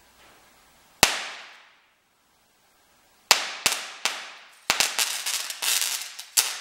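Sharp electric cracks of a charged bank of electrolytic capacitors (about 30 mF at 100 V) short-circuiting through aluminium foil held across its electrodes, arcing and throwing sparks as it burns through the foil. One crack about a second in, three more a few seconds later, then a fast run of cracks near the end.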